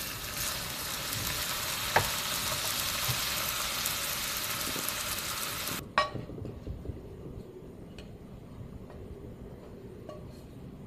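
Pork belly and new potatoes sizzling in a frying pan as a wooden spatula stirs them, with one knock of the spatula against the pan about two seconds in. The sizzle stops suddenly near six seconds, followed by a clatter and a few light knocks as the food is tipped out of the pan onto a plate.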